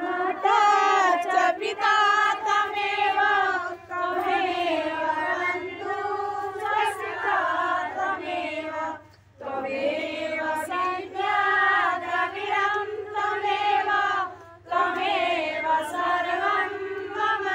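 A group of women singing a Hindu devotional aarti song together in unison, in phrases with short breaks about every five seconds.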